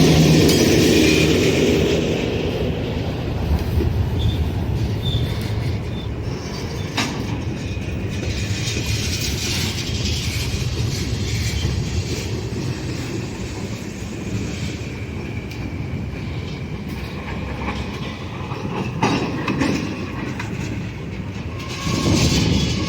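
Buffalo Southern freight train behind ALCO RS-11 diesel 5010 rolling along the rails. The wheels clatter over the track, with brief wheel squeals a few seconds in. The sound is loudest at the start, eases off, and rises again near the end.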